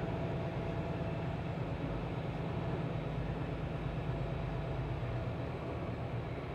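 Semi-truck's diesel engine running with a steady low drone as the truck rolls slowly forward.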